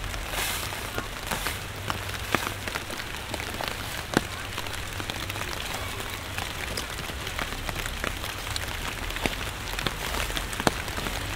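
Steady rain falling on street surfaces, with frequent sharp, irregular drop impacts close by.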